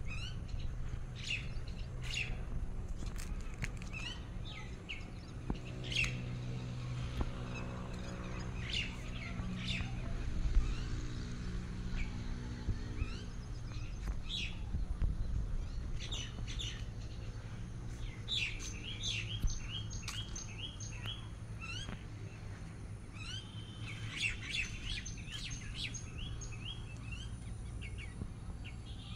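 Birds chirping: many short calls, with quick runs of repeated chirps in the second half, over a steady low hum.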